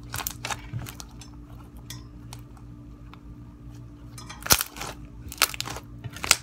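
Jelly cube slime being squeezed and pressed by hand on a tabletop, giving a few sharp squishing crackles, the loudest about four and a half seconds in and near the end, over a steady faint hum.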